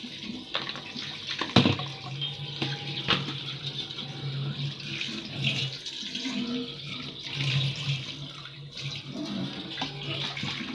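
Tap water running into a kitchen sink while a cooking pot is washed, with a few sharp knocks of the pot against the sink about half a second, one and a half and three seconds in.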